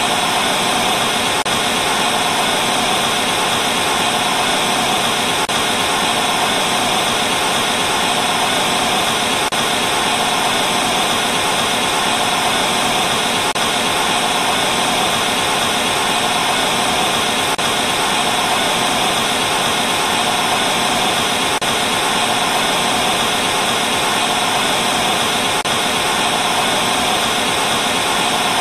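Analog TV static from a channel with no signal: a steady, unbroken hiss.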